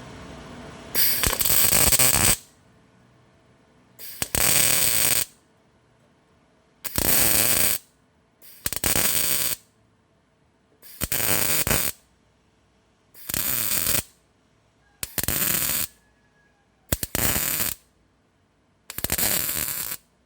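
MIG welder crackling in nine short bursts of about a second each, roughly a second apart: stitch-welding a repair panel flange in short runs.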